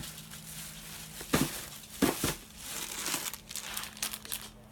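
Crinkling of plastic food packaging being handled and opened, with two louder knocks about a second and two seconds in.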